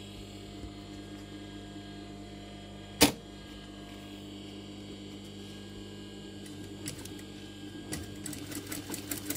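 Steady hum of a sewing machine's motor running while fabric is positioned under the presser foot. There is one sharp clack about three seconds in, and a run of small clicks near the end.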